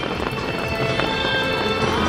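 Music playing, with the rapid crackling pops of aerial fireworks bursting over it.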